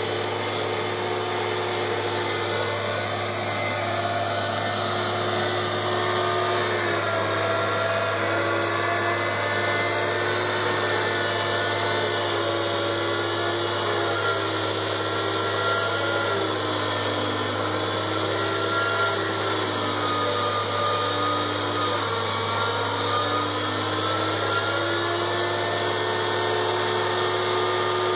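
Tractor-powered forage mill grinding dry corn stover, running steadily over the tractor engine's hum. Its whine sags and recovers in pitch several times through the middle.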